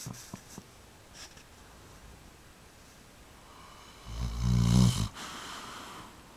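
A sleeping pet snoring: one loud, low snore about four seconds in, followed by a softer breathy sound as it breathes out.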